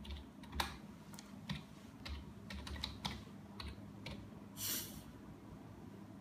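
Typing on a computer keyboard: about a dozen irregular key clicks, with one short louder hiss about three-quarters of the way through.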